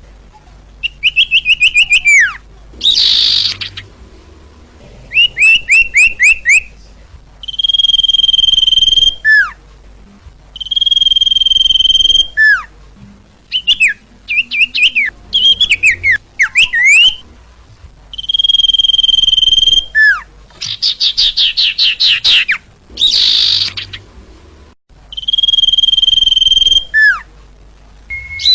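Sirtu bird song, loud and clean, as used for luring. It alternates long, steady whistled notes that drop away in a falling slur at the end with quick runs of short descending notes and fast trills, the pattern repeating over and over.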